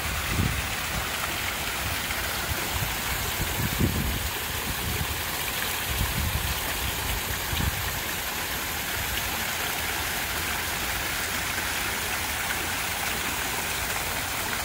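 Water splashing steadily from a pond fountain, a continuous rushing hiss, with a few low thumps in the first half.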